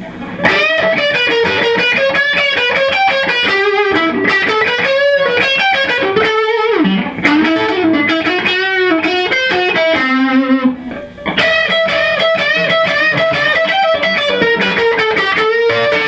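Single-coil Fender Stratocaster electric guitar playing a lead line of sustained, bent notes through an all-tube amp, with a switched-off non-true-bypass Boss OS-2 pedal in the signal path. To the player's ears this tone has gone from a fat tube sound to a thinner, solid-state-like sound, though he allows he may be imagining it.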